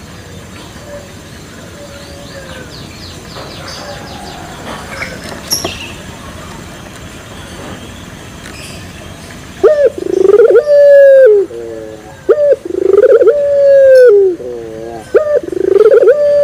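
Young barbary dove (a three-month-old 'pelung' puter) cooing loudly from about ten seconds in. It gives repeated calls, each a long held note that drops at the end, alternating with shorter wavering notes. Before that, only faint chirps of other birds.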